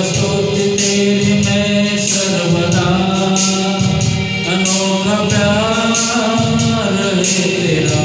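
A man singing a Christian worship song into a handheld microphone, with long held and gliding notes, over a backing track with a steady beat.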